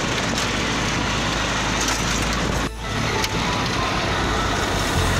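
Steady wind and road noise from a moving vehicle, with a low engine hum underneath. It dips briefly about two and a half seconds in.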